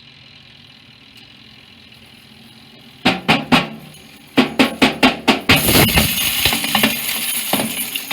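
Toaster oven fan running with broken glass pieces caught inside it. A low hum, then a string of sharp clattering knocks about three seconds in, turning into a loud continuous rattle of glass from a little past halfway.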